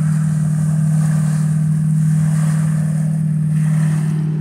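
A steady, low engine drone holding one unchanging pitch.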